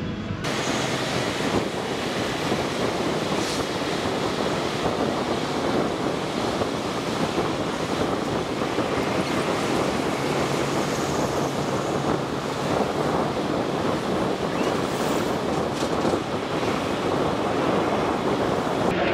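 Steady rushing noise of wind and road from riding in a moving vehicle, with no clear engine note, beginning abruptly about half a second in.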